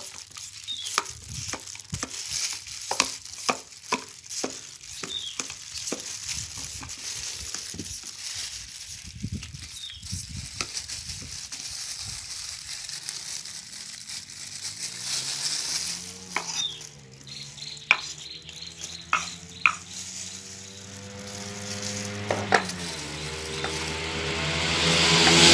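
A knife scraping and peeling the skin off a green papaya, with plastic gloves rustling and many short sharp strokes. Past the middle an engine hum rises in pitch, holds, and grows louder near the end.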